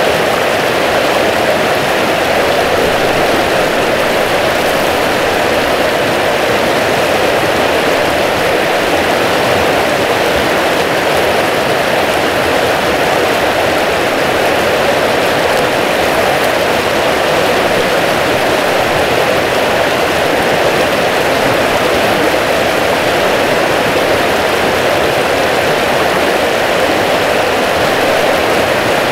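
River water rushing, a steady, even rush that does not change.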